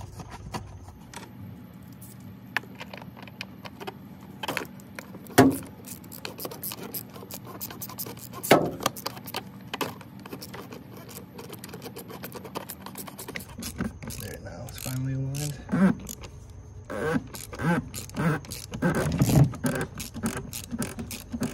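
BMW B48 oil filter housing cap being screwed down and tightened: scattered clicks and scrapes, with two sharp knocks about five and eight and a half seconds in, then a busier run of quick clicks and knocks in the last several seconds.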